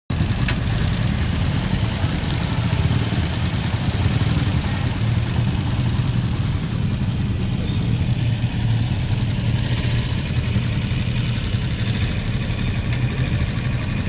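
Steady low engine drone of slow city traffic, with motorcycle tricycles, motorbikes and a multicab jeepney idling and moving close by, heard from inside a car.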